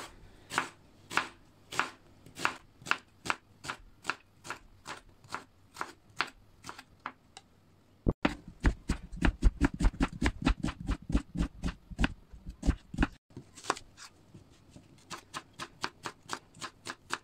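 Kitchen knife slicing onion on a wooden cutting board, the blade tapping the board with each stroke. The cuts come about two a second at first, then quicken midway into a run of heavier, thudding chops before settling back to lighter taps.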